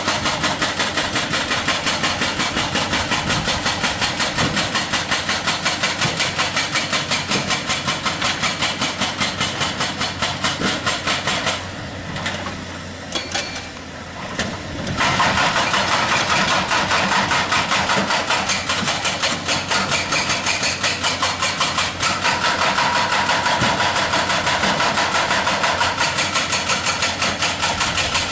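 Excavator-mounted hydraulic breaker hammering rock in rapid, evenly spaced blows, several a second, over the machine's diesel engine. The hammering stops for about three seconds near the middle, then resumes.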